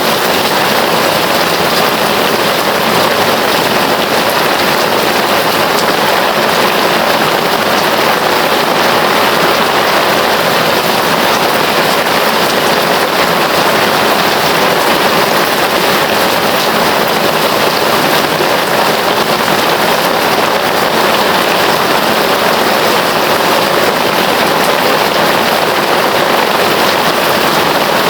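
Heavy rain falling steadily, a dense even hiss of raindrops with no thunder.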